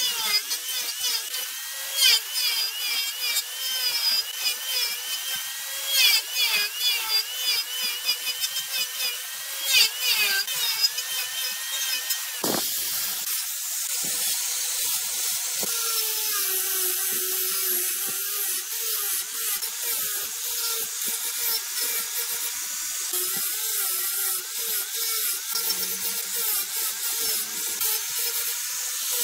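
Handheld angle grinder whining as it carves jackfruit wood turning on a lathe. In the first half it bites in with many short, sharp catches; in the second half it runs as a steadier whine with a hiss.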